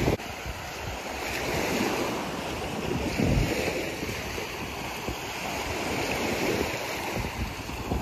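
Sea waves breaking and washing up the beach, swelling and easing every few seconds, with wind buffeting the microphone, hardest about three seconds in.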